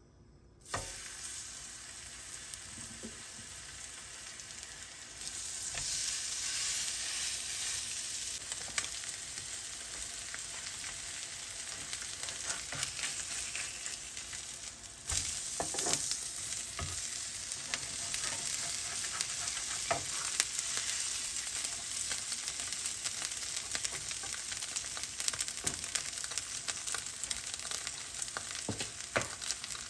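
Seasoned sea bass and salmon fillets frying in hot oil on a grill pan. The sizzle starts suddenly about a second in as the fish goes into the pan, grows louder about five seconds in and again about fifteen seconds in, and runs as a steady hiss with scattered pops of spitting oil.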